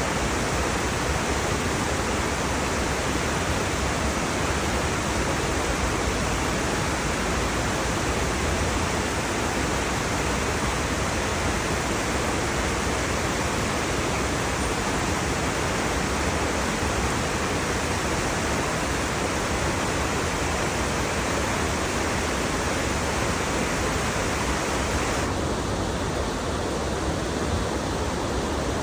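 River flowing: a steady rush of water, with the higher hiss dulling slightly near the end.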